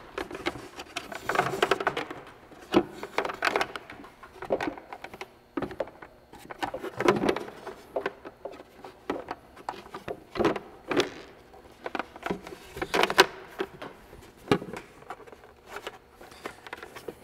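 Handling noise: a transducer cable rustling and sliding as it is pulled through a hard plastic sonar pod box, with irregular clicks and knocks of the plastic box being moved about on a workbench.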